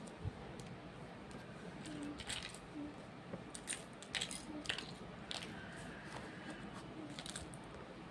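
Small paint tubes being set down on paper and handled, a scatter of light clicks and taps, several of them about two to seven seconds in.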